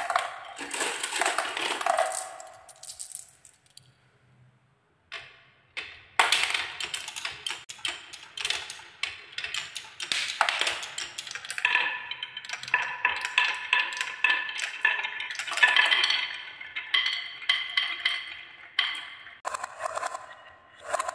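Glass marbles and balls rolling and clacking along wooden marble-run tracks. A burst of rattling, a short near-silent gap about four seconds in, then dense clicking and clatter, with ringing tones under it from about twelve seconds in.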